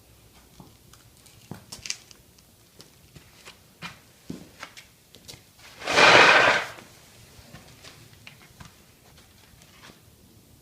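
A horse blows out once through its nostrils, a loud, breathy snort lasting under a second about six seconds in, amid faint scattered clicks and rustles.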